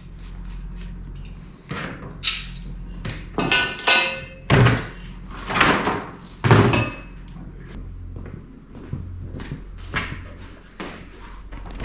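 Metal hardware being handled and set down: a string of knocks and clanks, several ringing briefly, the loudest in the middle, over a steady low hum.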